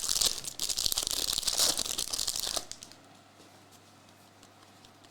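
Crinkling and rustling of a trading-card pack wrapper, with cards being handled, lasting about two and a half seconds before it stops and leaves only a faint hum.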